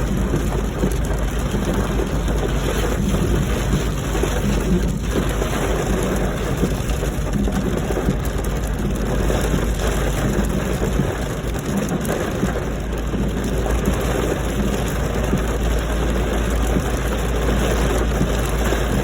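Steady rain falling on a car, over a continuous low rumble from the car.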